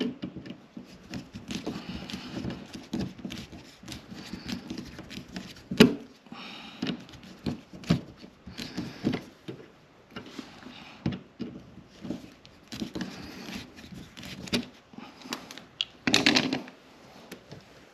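Hand tools and wires being worked in an electrical outlet box: irregular clicks, taps and rustling, with a sharp knock about six seconds in and a louder scraping rustle near the end.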